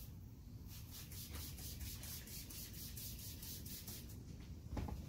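Trigger spray bottle squirting a 50-50 alcohol-and-water mix onto a windshield in a quick run of short hissing sprays, about four a second. A brief louder low sound comes near the end.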